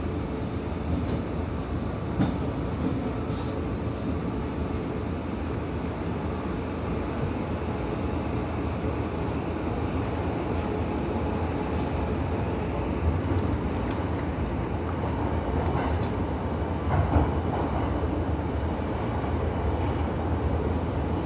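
Subway train running, heard from inside the carriage: a steady rumble with a few short sharp clicks.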